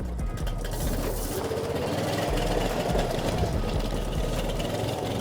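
Small motor of a motorized ride-on shop stool running with a rapid, steady putter; its pitch rises a little about two seconds in and then holds.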